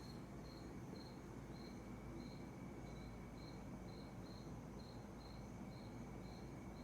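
Cricket chirping faintly and evenly, about two chirps a second, over a low steady hum and a thin high whine.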